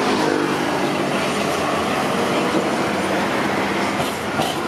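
Hiroshima Electric Railway 3800-series articulated tram running past close by on street track, with a few sharp clicks about four seconds in.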